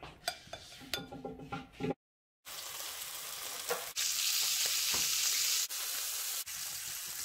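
A metal spoon clinking and scraping in a ceramic bowl of tortellini for about two seconds; then, after a brief silent gap, a steak frying in butter in a frying pan, a steady sizzle that is louder for a stretch in the middle.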